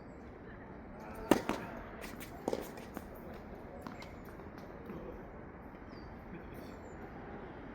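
Tennis ball struck by rackets and bouncing on the court during a rally: a sharp loud hit about a second in, another about a second later, and a few softer knocks, over steady wind noise on the microphone.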